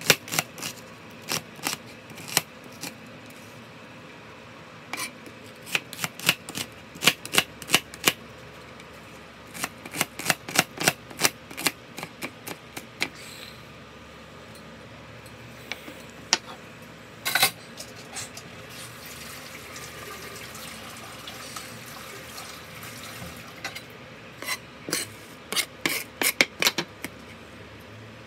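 Kitchen knife chopping a red onion, the blade tapping down on the cutting board. Quick runs of sharp taps, several a second, broken by pauses of a few seconds.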